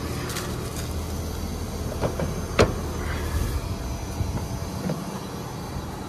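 Carrier inverter heat-pump outdoor unit running with a steady low hum. Several clicks and knocks sound over it, the loudest about two and a half seconds in.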